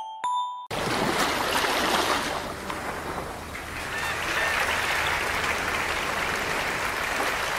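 Audience applauding, starting suddenly just under a second in and cutting off a few glockenspiel-like music tones.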